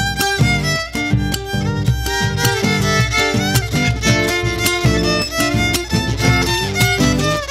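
Instrumental chacarera played live: a violin carries the melody over a strummed acoustic guitar and the steady beat of a bombo legüero struck with a stick.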